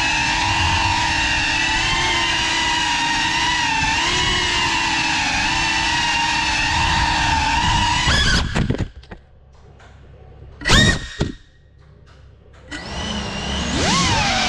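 FPV quadcopter's motors and propellers whining, the pitch wavering with throttle. About eight seconds in the motors cut out, leaving a much quieter stretch broken by one short, loud rising blip. Near the end they spool back up, rising in pitch.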